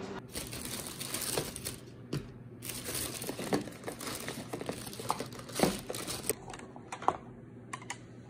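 Crinkling and rustling of something being handled, with scattered light clicks and knocks; the crinkling stops a little after six seconds in, leaving a few clicks.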